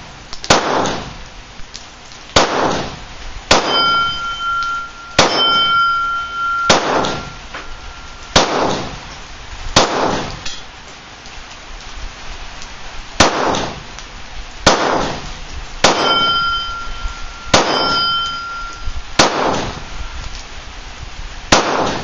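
A Glock 19 Gen 4 9mm pistol fires single shots at a slow, even pace, about one every one and a half seconds, thirteen in all, with a pause of about three seconds near the middle. Four of the shots, two near the start and two later on, are followed by a clear metallic ring lasting about a second.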